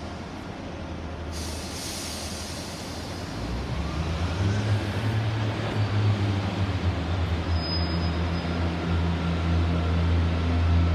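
Class 142 Pacer diesel railbus departing. A hiss starts about a second in; then, about three and a half seconds in, its underfloor diesel engines open up into a loud, low drone that keeps building as the unit pulls away.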